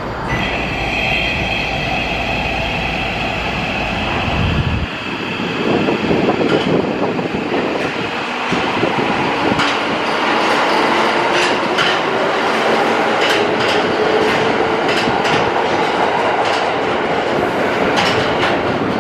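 Tokyo Metro Marunouchi Line 2000 series subway train pulling out of a station. Its traction motors give a whine that rises slowly in pitch as it gathers speed, and its wheels click over the rail joints as the cars pass.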